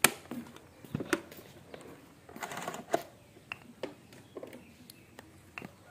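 Clicks and knocks of a used rice cooker and its inner pot being handled: a sharp click at the start, then scattered light taps about a second apart, with a brief rustle about halfway through.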